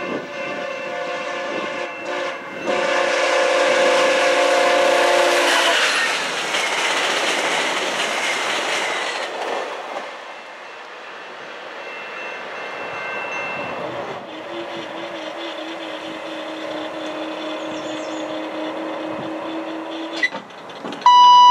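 VIA Rail passenger train sounding its horn chord on approach, two blasts with a short break between them about two seconds in. The train then rushes past with rumbling wheels and clickety-clack over the rail joints, and the noise fades away about ten seconds in.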